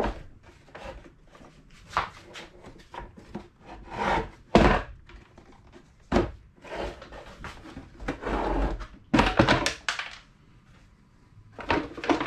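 Plastic housing parts of a vacuum cleaner being handled while it is taken apart: a series of separate knocks and thunks, with brief scraping and rubbing between them.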